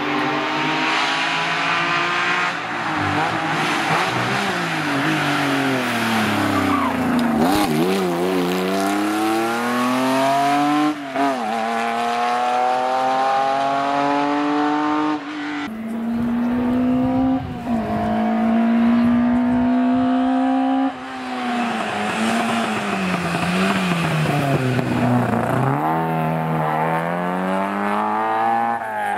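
Historic rally cars driven flat out one after another on a tarmac stage: an early Porsche 911's air-cooled flat-six, then a Mk1 Volkswagen Golf's four-cylinder. Engines rev hard, drop sharply on downshifts into the bends and climb again through the gears, with one stretch of high revs held steady.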